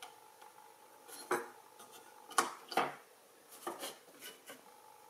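Several small sharp clicks and taps of electronic components being handled and pressed onto a printed circuit board by hand.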